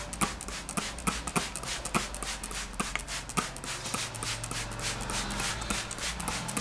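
A barber's hands tapping in a percussive massage: a quick, uneven run of light slaps, several a second, over a low steady hum.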